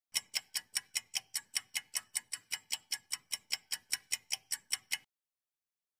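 Countdown-timer ticking sound effect: rapid, even ticks, about five a second, that stop suddenly about five seconds in.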